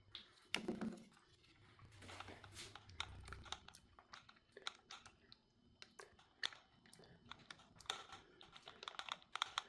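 Faint, irregular small clicks, taps and rattles of a 12-volt mini chainsaw's chain, bar and plastic cover being handled and fitted back into place.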